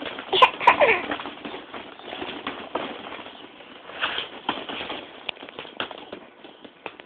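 A baby's two short squeals, falling in pitch, about half a second in. Then scrabbling, tapping and rustling as the baby handles the camera close up.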